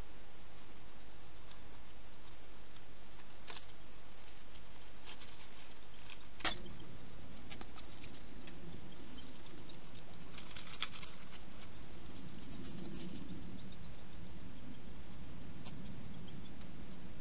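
Light scattered clicks and rustling from a wild hedgehog moving about, over a steady hiss. A sharp click comes a little past six seconds in, and after it a low rustling as the hedgehog brushes close to the camera.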